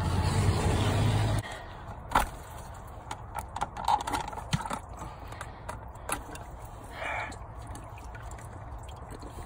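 Diesel fuel draining out of a 6.7 Cummins fuel filter housing as a faint steady trickle. A loud rubbing and handling noise opens the first second and a half, and a few clicks and knocks follow from hands working at the housing.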